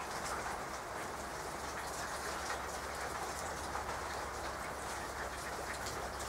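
Steady rain falling on leaves and wet paving stones: a constant even hiss with scattered individual drips.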